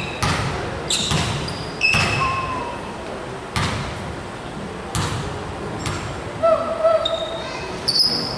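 Basketball bouncing on a gym floor, the bounces roughly a second apart, with short high squeaks of sneakers on the court between them.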